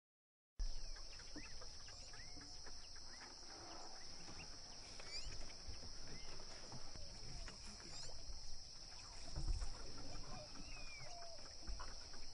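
Outdoor ambience: a steady high insect drone with scattered short bird chirps. It starts suddenly about half a second in.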